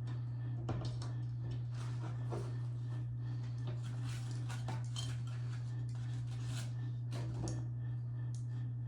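Light, scattered clicks and taps of small computer parts and screws being handled, over a steady low hum.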